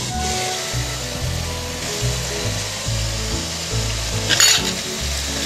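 Onion-tomato-spice masala sizzling and bubbling in oil in a pan, cooked down to the well-fried (bhuna) stage, under background music with a steady beat of bass notes. One brief sharp sound about four seconds in.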